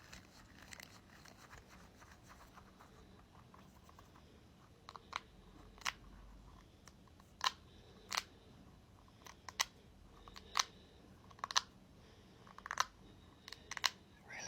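A ball being handled close to the microphone: faint scratching at first, then from about five seconds in, irregular sharp crackles and clicks roughly once a second.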